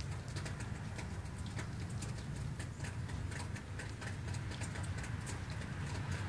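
Steady low rumble of wind on the microphone, with irregular light ticks and taps scattered through it, several a second.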